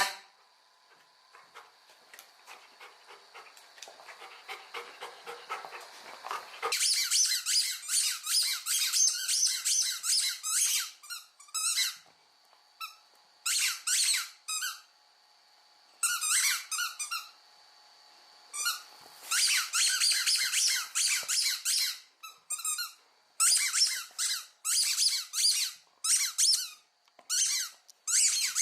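Squeaky dog toy squeaking rapidly in runs of quick, high-pitched squeaks with short pauses between them. The squeaking starts after about six seconds of faint ticking.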